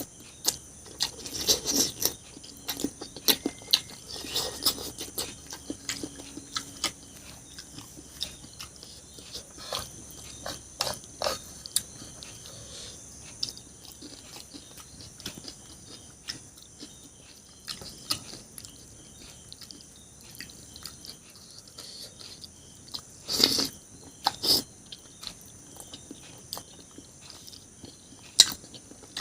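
A person eating close to the microphone: chewing and mouth sounds, with scattered sharp clicks and smacks, a few louder ones now and then.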